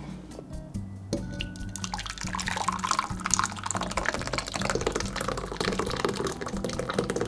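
Water running or liquid pouring, starting about a second and a half in and growing louder, over steady background music.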